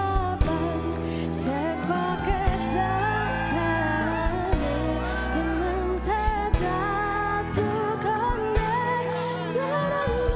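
A woman singing a song into a handheld microphone over backing music with a steady bass and a beat.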